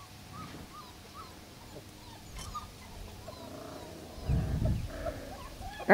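Puppies play-fighting: faint, short high squeaks and yips, then a louder low growl about four seconds in.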